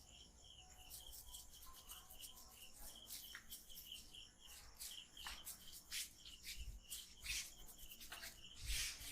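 Hands rubbing and kneading an oiled scalp in soft, swishing strokes, a few louder ones in the second half, with a steady, evenly repeated high chirping in the background.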